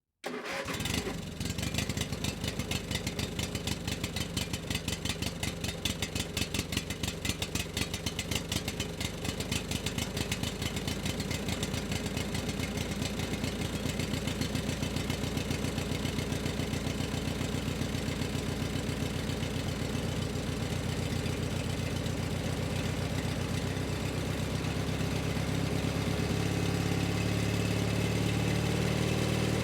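An engine starts at once and settles into running with an even, rhythmic firing pulse. Over the last few seconds the pulses get faster and smoother and the sound grows louder.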